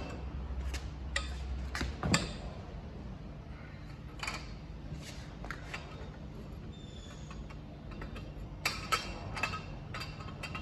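Hand tools and metal parts clicking and clinking during engine assembly, in scattered sharp knocks that bunch up near the start and again near the end. A low steady hum stops about two seconds in.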